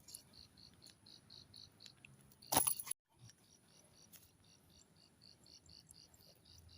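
Insects chirping in a steady rhythm, about four to five high chirps a second, over a constant thin high whine. About two and a half seconds in, a brief loud rush of noise cuts in, followed by a moment of dead silence before the chirping resumes.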